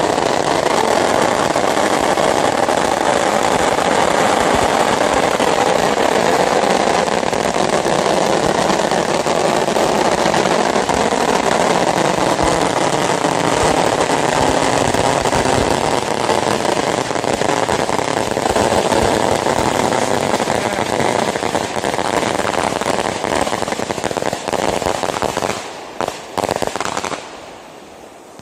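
A 26-metre fireworks string hung beneath a festival balloon is firing off, a loud, dense, unbroken crackle of firecrackers. About 25 seconds in it breaks up into a few separate bangs and then dies away.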